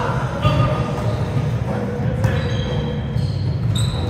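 Volleyball rally in a large gym: a couple of sharp ball hits echoing in the hall, players' calls and a short high sneaker squeak on the hardwood floor near the end, over a steady low hum.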